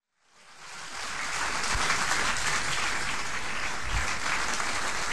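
Audience applauding steadily, fading in over the first second.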